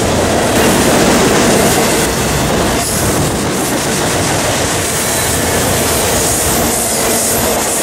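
Freight cars of a passing train rolling by, a loud, steady rumble of wheels on rail with clattering and a faint high wheel squeal.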